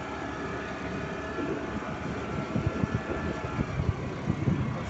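Motor scooter engine running steadily while riding, with irregular low thumps in the second half.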